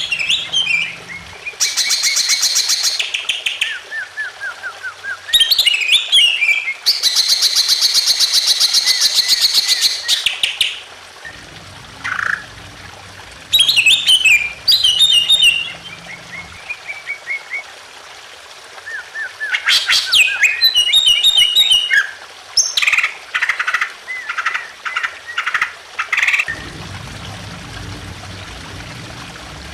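Greater green leafbird (cucak ijo) singing loudly: long, fast buzzy trills and runs of sharp, falling chirp notes, broken by short pauses. A low trickle of water runs underneath at times.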